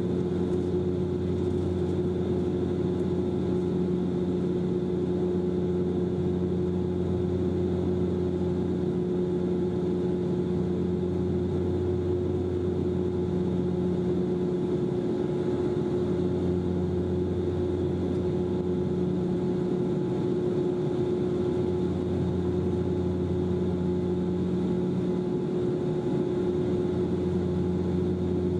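Steady drone of a Bombardier Dash-8 Q400's twin turboprops and propellers heard inside the cabin during the climb after take-off, a constant low hum held at several fixed pitches over a rushing noise.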